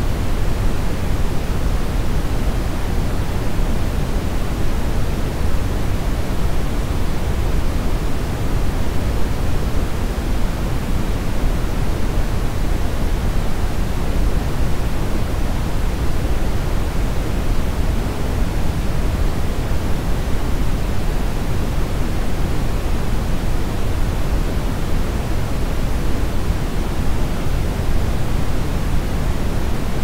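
Steady synthetic brown noise: an even, deep hiss with most of its weight in the bass and little in the treble.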